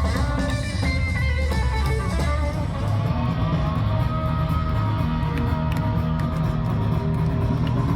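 Background music led by strummed guitar over a steady bass.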